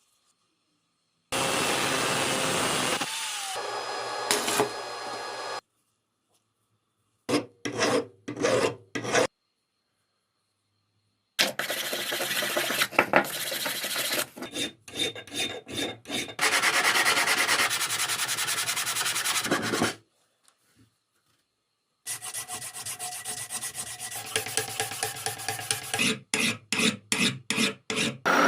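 Hand filing and sanding on the steel of an old King Dick adjustable wrench: rasping, rubbing strokes in short clips, broken by abrupt cuts to silence. Quick back-and-forth strokes come a little after 7 s and again near the end.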